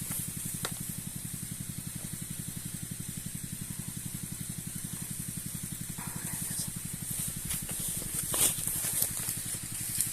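Engine-driven power sprayer running steadily with a rapid, even pulsing beat, while the spray hisses from the hose nozzle. From about six seconds in, a few short sharp sounds and rustles come over it.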